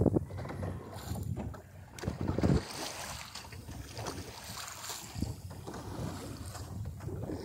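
Wind rushing over the microphone and water washing along the hull of a small sailboat under way, with a louder rush about two seconds in and a few faint knocks.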